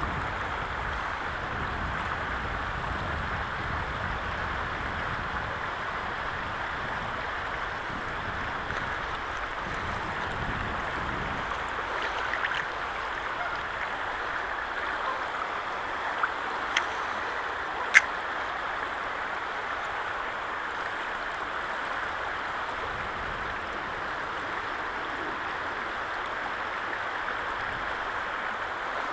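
Shallow river running over a stony riffle: a steady rush of water, with an uneven low rumble beneath it. A few sharp clicks about two thirds of the way through.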